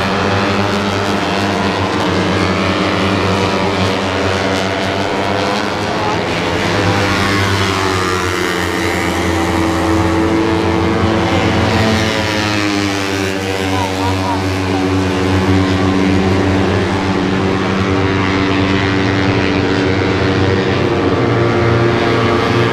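Several open-piped underbone racing motorcycles, Suzuki Raiders and Yamaha Snipers, running hard around the circuit: a loud, continuous engine din whose pitch climbs and falls as the bikes rev, shift and pass, with clear sweeps about six seconds in and again about twelve seconds in.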